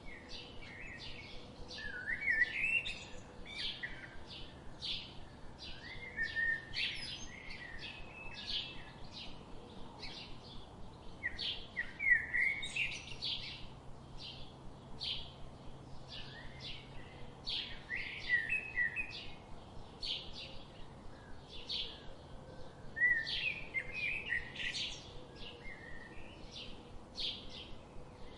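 Wild birds singing: a steady run of short, high chirps, with louder warbling phrases breaking in about every few seconds.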